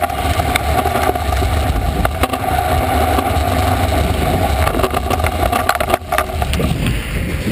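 Kick scooter's wheels rolling fast over a concrete floor, heard up close as a steady rolling rumble. A few sharp clicks and knocks break through, the clearest about two seconds in and about six seconds in.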